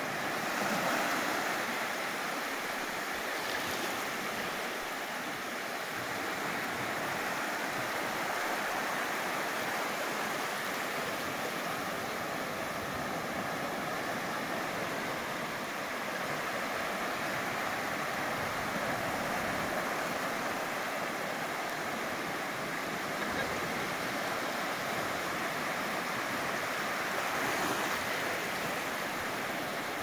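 Sea waves washing onto a sandy beach in a steady surf, swelling a little louder about a second in and again near the end.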